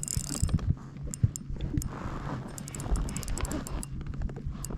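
Fishing reel clicking irregularly while a hooked lake trout is fought, over a steady low hum, with a few knocks in the first half.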